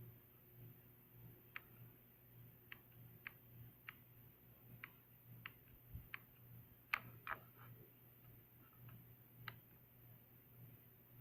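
Light plastic clicks from handling a digital pocket scale and pressing its buttons, about a dozen at uneven spacing with the loudest pair about seven seconds in, over a faint low hum.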